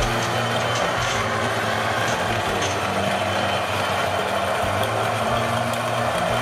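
Niche Zero coffee grinder running steadily, its motor humming as it grinds a single dose of espresso beans.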